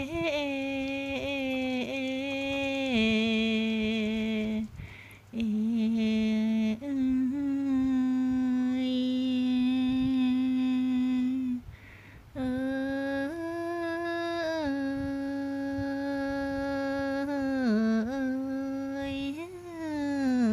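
A person humming a slow lullaby in long held notes that step up and down in pitch, pausing briefly for breath about five and twelve seconds in.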